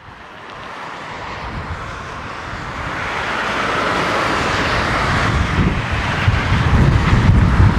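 A vehicle approaching: a rumbling, wideband noise that grows steadily louder, heaviest in the low end near the end.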